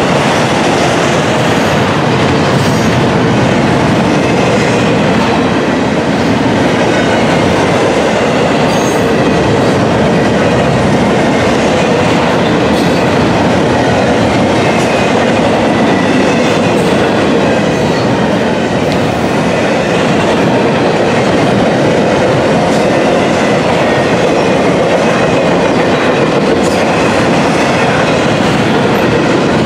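Double-stack intermodal container well cars rolling past at close range: a loud, steady rumble of steel wheels on the rails. Faint high wheel squeal runs through it, with occasional clicks over the rail joints.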